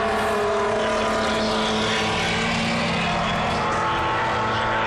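Several historic racing cars running at speed on the circuit, their engine notes overlapping in a steady, continuous sound that shifts slightly in pitch.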